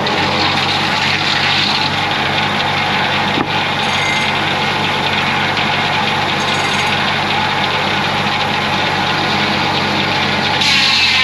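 Homemade bandsaw sawmill running steadily, its motor giving a low, even hum under a hiss. Near the end the sound gets louder and brighter as the blade noise rises.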